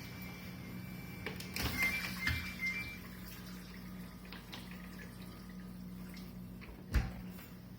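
GE dishwasher running mid-cycle: a steady low motor hum with a thin, shrill high whine that cuts off about two seconds in. Around the same moment comes a short burst of water splashing and clicks, and there is a single knock near the end.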